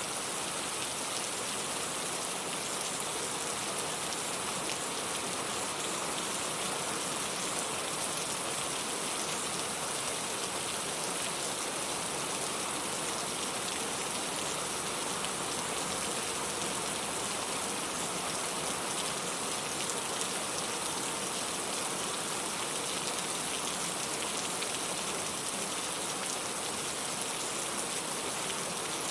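Steady rain falling as an even, unbroken hiss, with faint fine patter in it.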